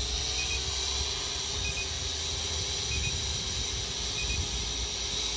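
SJRC S70W quadcopter hovering, a faint steady whine under wind rumbling on the microphone. A short double beep repeats about every second and a quarter.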